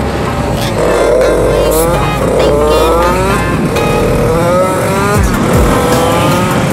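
GasGas EC250 enduro motorcycle engine accelerating through the gears, its pitch rising and dropping back at each shift twice, then holding steady at cruising speed. Low wind rumble on the microphone in the first half.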